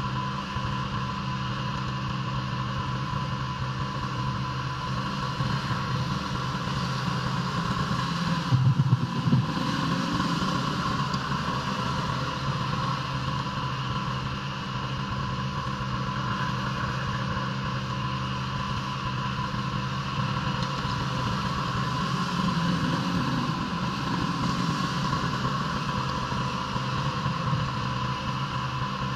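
Engine-driven pressure washer running steadily, with a brief louder surge about nine seconds in.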